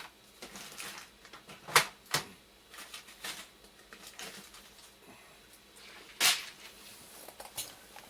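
Small parts and a parts box being rummaged through on a workbench: scattered light clicks and clatter, with a couple of sharper knocks about two seconds in and another about six seconds in.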